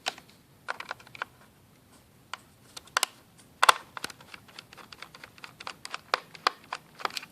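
Irregular small clicks and taps of a screwdriver working screws out of a laptop's plastic bottom case, with a few louder clicks about three and a half seconds in.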